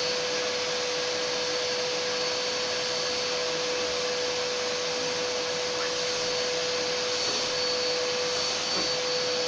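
Vacuum cleaner running steadily: a constant rushing noise with a steady hum and a faint high whine above it.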